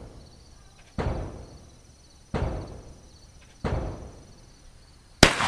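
Four dull thuds about a second and a half apart, then near the end a single sharp, loud shotgun shot.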